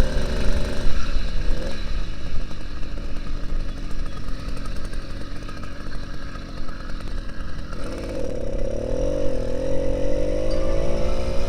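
An 80cc two-stroke motorized-bicycle engine with a cut-down exhaust pipe, running under way. Its note rises steadily in pitch from about eight seconds in as it picks up speed, and wind rumbles on the microphone throughout. Its owner says the engine is still losing power on the straights.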